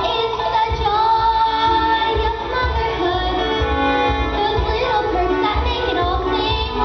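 Young female voices singing a musical-theatre song over backing music, with held and sliding sung notes.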